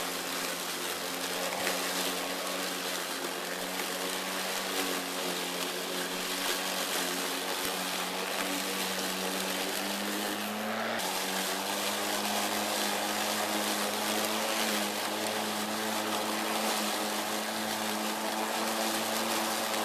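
Greenworks 80V brushless cordless lawn mower cutting tall, thick grass: a steady motor-and-blade hum over a broad rushing noise. Its pitch shifts slightly as the load changes, rising briefly a little past halfway, then dropping back.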